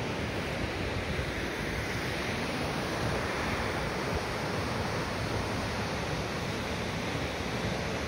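Jōren Falls, a waterfall plunging into its pool, making a steady rushing of falling water.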